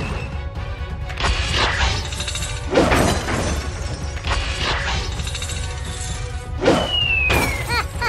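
Background music with dubbed-in crash and shattering sound effects as toy vehicles are smashed. There are several separate hits, and a short falling whistle-like tone comes near the end.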